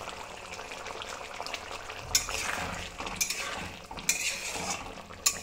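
A spatula stirring a simmering curry in a kadai over a steady low sizzle, scraping against the pan several times in the second half.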